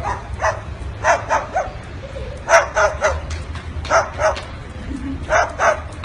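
White cockatoo barking like a dog: short sharp barks in quick runs of two or three, repeated about every second and a half.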